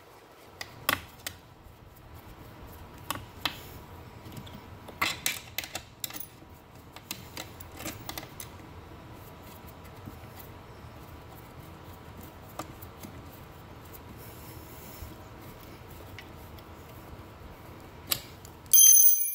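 Scattered clicks, taps and light rattles of a small hand tool and metal hardware being worked on a wheelchair foot plate while the ankle supports are fitted, with a louder burst of clicking near the end.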